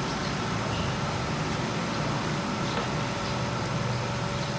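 A steady, low mechanical hum of an engine running at an even speed, unchanging throughout, with a few faint light ticks above it.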